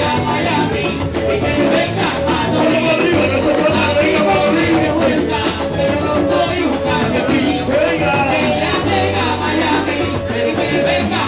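Live cubaton (Cuban reggaeton) music with a male vocalist singing into a microphone over the backing music.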